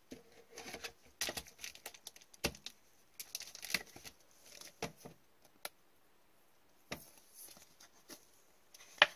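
Trading cards and pack wrappers being handled: scattered soft rustling, crinkling and light taps, with one sharper click near the end.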